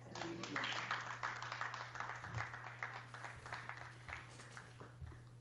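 Audience applauding, a dense patter of claps that dies away over about four seconds, over a steady low hum.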